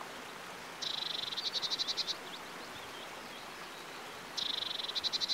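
A creek rushing steadily, with a small bird's song heard twice, about a second in and again near the end: a high buzzy trill that breaks into a run of rapid notes.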